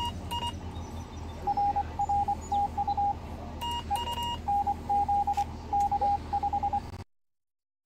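Morse code (CW) beeps from a Yaesu FT-736R transceiver. A slightly higher tone comes in short keyed groups while the operator works the key, taking turns with a slightly lower tone sending dots and dashes, the other station coming back. There is a steady low hum underneath, and the sound cuts off suddenly about seven seconds in.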